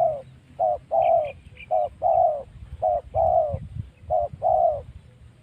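A dove cooing in a repeated two-note phrase: a short 'kuk' and then a longer, slightly falling coo, about once every second and a quarter, four times over.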